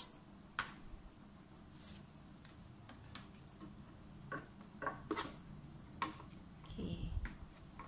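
Faint scattered clicks and taps of plastic parts of an ice crusher machine being handled, with a soft low knock near the end.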